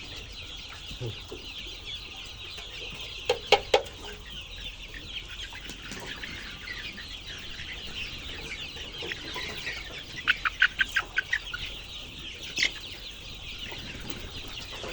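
Many chicks peeping together, a steady overlapping chorus of short high falling peeps. It is broken by a few louder sharp sounds: two or three about three seconds in, and a quick run of about eight around ten seconds in.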